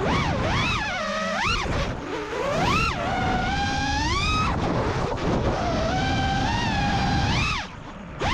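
FPV quadcopter's brushless motors whining over wind rush, the pitch swooping up and down as the throttle is punched and eased. Near the end the motor whine drops away briefly as the throttle is cut, then comes back.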